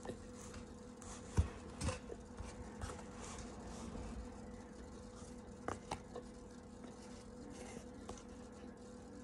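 Cornstarch being chewed and a plastic spoon scraping and clicking in a plastic tub of cornstarch: scattered soft crunches and sharp clicks, the loudest about one and a half and six seconds in, over a steady hum.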